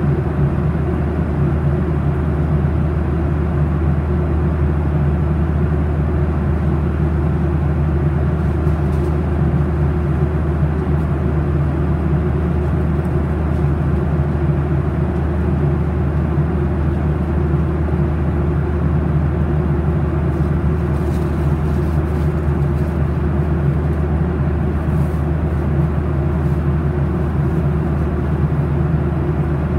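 Steady low drone of a Boeing 737-800 in flight, heard inside the cabin from a window seat beside the engine: its CFM56-7B turbofan engines and the rush of air over the fuselage.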